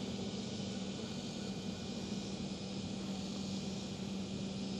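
Steady low hum under an even hiss of background noise.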